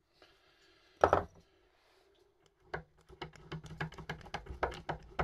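A single sharp knock about a second in, then a fast run of light metallic clicks, several a second, as the freshly reassembled pinion on the shaft of an Ape 50 starter motor is twisted by hand.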